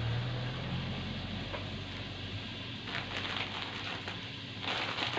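Plastic snack wrapper crinkling as it is handled, in a few short rustles about three seconds in and a louder bout near the end.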